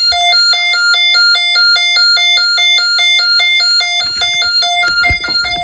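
Electronic alarm tone from a Snap Circuits fire alarm system's speaker, two pitches alternating quickly, about three times a second, sounding the supervisory signal. A few faint knocks come in near the end.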